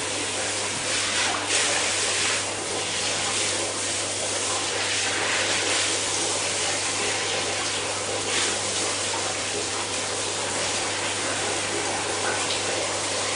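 Bath water running steadily with swells of splashing while a dog is washed, over a steady low hum.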